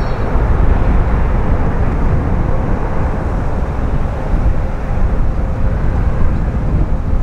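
Airbus A350-941 jet airliner with Rolls-Royce Trent XWB engines, heard as a loud, steady rumble of engine noise with no clear breaks.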